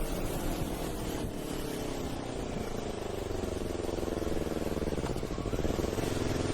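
A motorcycle engine idling steadily, its pitch settling a little lower early on and then holding.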